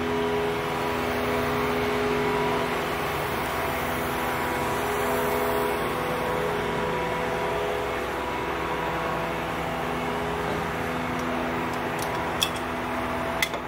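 Steady mechanical hum of an idling engine, holding several even tones, with two short clicks near the end.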